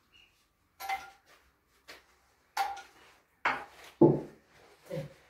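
Kitchen clatter: a metal spoon clinking and knocking against a bowl and a large round metal baking tray, several separate strikes with short gaps between. The loudest is a dull knock about four seconds in.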